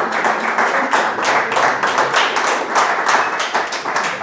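Small audience clapping and applauding, a dense patter of many hands that stops near the end.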